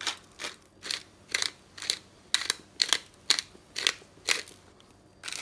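Hand-held pepper mill grinding black peppercorns in a run of short twists, about two a second, stopping just before the end.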